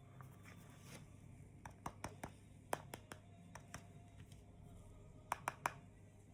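Small clicks and taps from hands handling the headphones and their packaging: a scattering of light clicks, then three sharper clicks in quick succession near the end.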